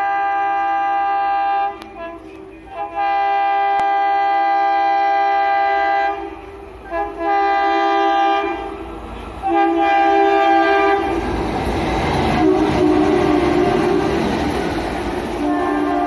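Horns of a pair of ALCO diesel locomotives sounding repeatedly at speed: several long multi-tone blasts of two to three seconds each, with short toots between them. About two-thirds of the way in, the rumble and rail clatter of the locomotives running past come up loud under the still-sounding horn, and another horn blast follows near the end.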